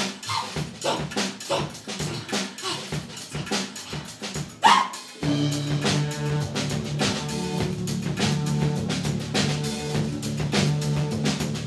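Live band playing: a drum kit keeps a steady beat under double bass, electric guitar and a woman singing. About five seconds in, long held low notes come in under the drums.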